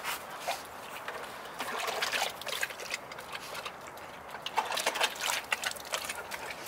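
Rottweiler lapping water from a plastic bucket, with irregular splashing laps: messy drinking, like a pig.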